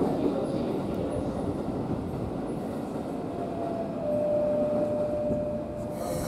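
Keikyu electric train running, a steady rumble of wheels and car body, with a thin steady whine through the second half that stops about six seconds in.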